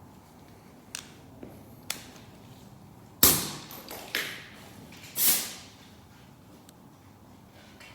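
Metal sockets and tools clattering as a different socket is picked out: two light clicks, then three louder clanks about a second apart, each dying away quickly.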